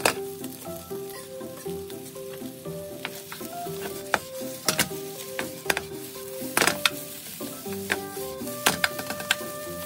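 Fried rice sizzling in a nonstick frying pan over a gas flame as it is stirred with a wooden spatula and tossed in the pan, with several sharp knocks and scrapes of spatula and pan.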